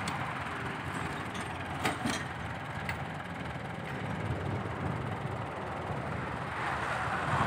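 Heavy diesel engines running steadily: a dump truck moving off, then a Ford 6640 tractor working, with two short clacks about two seconds in.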